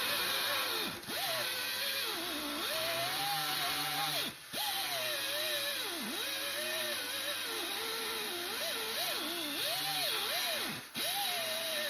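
Small angle grinder cutting out solidly welded-over spot welds in steel, its pitch repeatedly dipping and recovering as it bogs under load. The sound drops out briefly three times.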